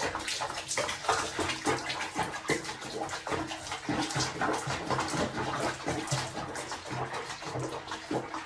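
Water splashing and sloshing in a small basin of soapy bathwater as a wet cat moves about in it, in quick, irregular splashes throughout.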